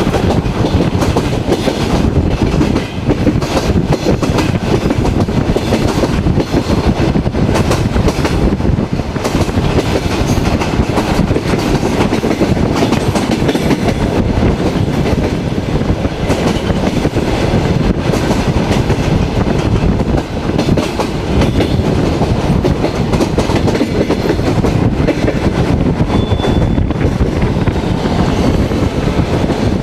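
Passenger railway carriage running at speed, heard at its window: a steady, loud rolling noise of wheels on rails mixed with wind, with many short knocks from the running gear.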